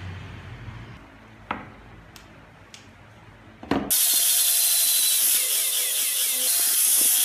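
A few light knocks of small wooden pieces being fitted together. About four seconds in, a handheld power sander with a disc pad starts abruptly and runs steadily, sanding a wooden surface.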